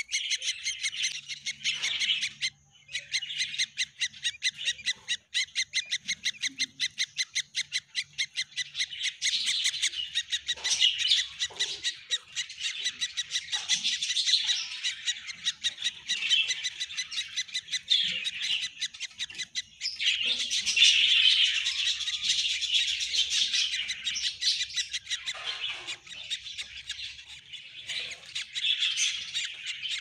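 Nestling birds' begging calls: a fast, almost unbroken stream of high, thin chirps, many notes a second.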